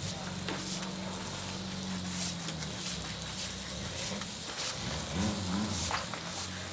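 A car engine running, its pitch dipping slightly partway through and rising about five seconds in, over steady street traffic noise.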